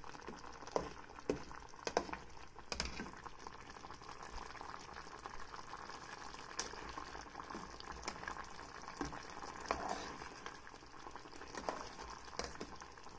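Coconut milk with fish simmering in an aluminium pot, a steady bubbling, while a spoon stirs it and clinks against the side of the pot now and then, most often in the first three seconds.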